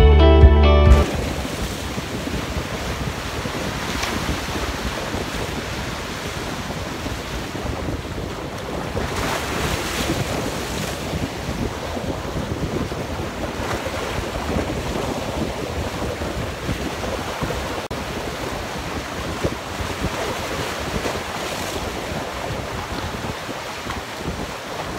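Background music cuts off about a second in, then sea waves break and wash against the rocks of a breakwater, with steady wind noise on the microphone.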